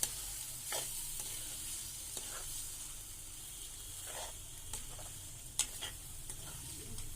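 Pasta in sauce sizzling in a frying pan on high heat as it is stirred, with a few scrapes and knocks against the pan; the sharpest knock comes about five and a half seconds in.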